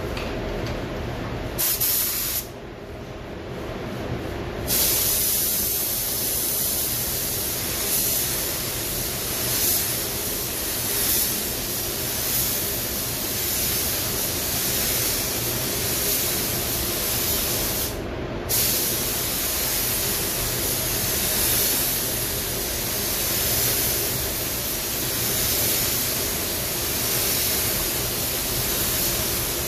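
Compressed-air paint spray gun hissing as it sprays paint onto a car's side panels: a short burst about two seconds in, then long near-continuous passes from about five seconds in, with a brief break around eighteen seconds. A steady low hum runs underneath.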